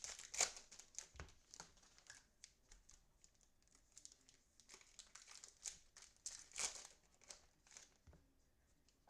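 Plastic wrapping on trading-card packaging being crinkled and torn open, in irregular crackles, loudest about half a second in and again near seven seconds.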